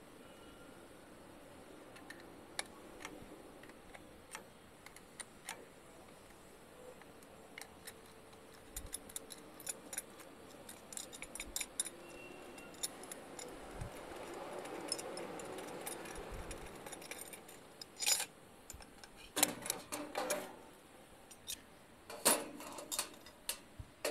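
Small metallic clicks and clinks of spanners working the bolt and nut of a stainless-steel clamp on an RO membrane housing end cap as it is loosened, with louder metal clattering in the last few seconds as the clamp is handled.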